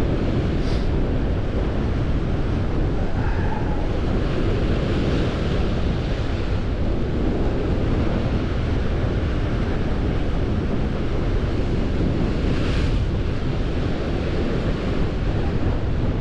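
Strong wind buffeting the microphone over surf breaking against a sea rock, a steady heavy rumble with two brief hisses of wash, one about a second in and one later on.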